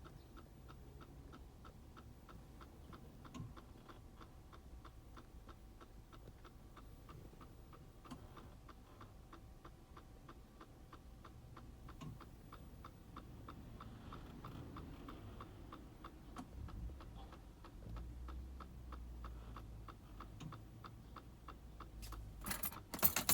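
Even, clock-like ticking from the air-conditioning area of a Mercedes-Benz W639's dashboard, about two to three ticks a second, under a faint low hum. The ticking is an abnormal noise that the owner is trying to trace.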